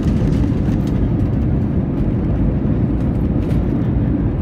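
Jet airliner moving along the runway, heard from inside the cabin: a steady, loud low rumble of engines and rolling wheels.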